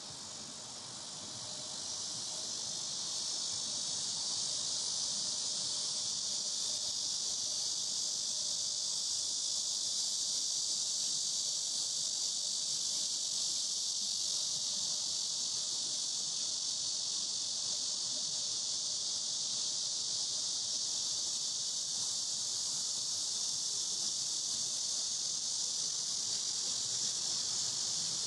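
Chorus of summer cicadas in the trees, a dense high continuous buzz that grows louder over the first few seconds and then holds steady.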